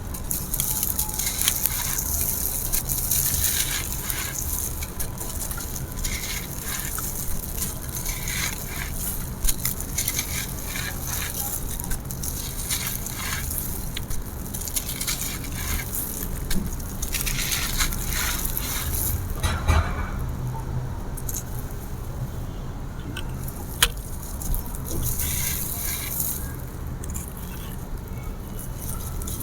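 Small dry concrete slabs being crumbled, crunching and crackling in irregular gritty bursts with occasional sharp snaps, over a steady low hum.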